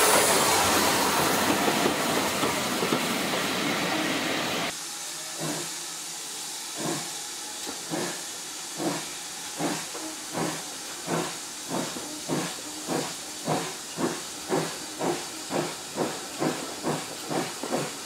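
Loud steam hiss beside a steam locomotive that cuts off abruptly a little under five seconds in. Then a steam locomotive's exhaust beats, heard from the train, start slow and steadily quicken to about two chuffs a second as the train accelerates away.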